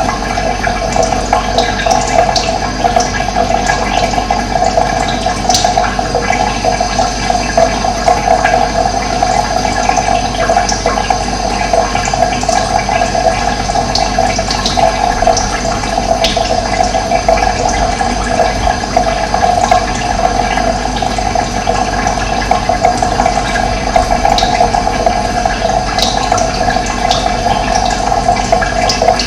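Steady rushing of running water, unbroken and even. A few short, faint high bird chirps come through here and there.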